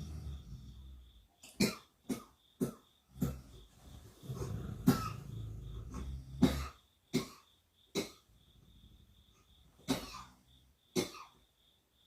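A sleeping person snoring with a low rumble, broken by a run of about ten short, sharp coughs spaced irregularly, half a second to two seconds apart.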